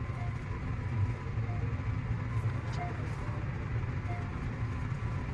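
JR Central 315 series electric train running, a steady low rumble of wheels on rail with a faint hiss above it.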